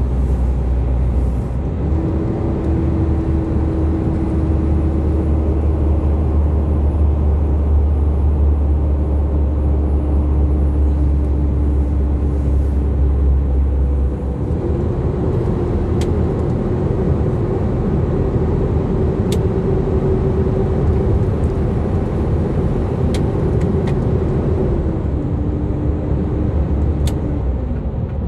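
Steady engine drone and road rumble heard inside a container truck's cab while driving. The engine note shifts about halfway through, and a few faint clicks sound in the second half.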